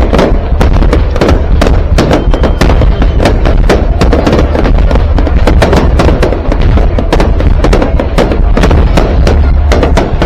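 Fireworks display: a rapid, dense string of loud bangs and crackles over a heavy low rumble, with music playing under it.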